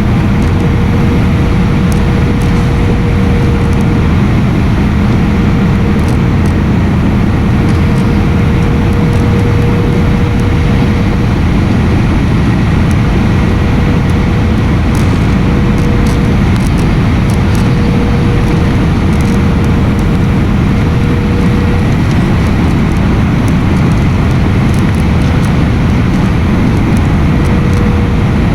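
Airliner cabin noise: the steady, loud rush of the jet engines and airflow heard from a passenger seat, with a faint steady hum running through it.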